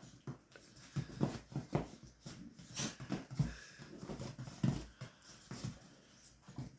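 A chihuahua puppy and a bigger dog play-fighting: irregular short low dog noises, several a second, mixed with scuffling on the couch.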